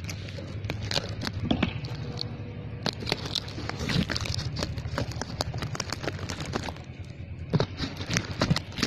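Taped cardboard parcel being cut and torn open: scissors snipping and packing tape and cardboard crackling and ripping in a rapid, irregular run of sharp clicks.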